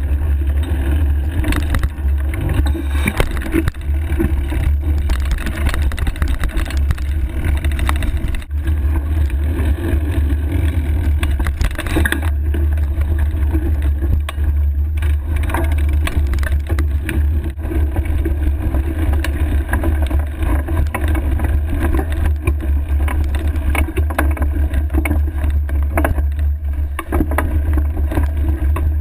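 Surly Ice Cream Truck fatbike on 4.8-inch Knard tyres ridden over dirt singletrack, heard through a handlebar-mounted camera: a steady low rumble of wind and trail vibration, with frequent knocks and rattles as the bike rolls over roots and rocks.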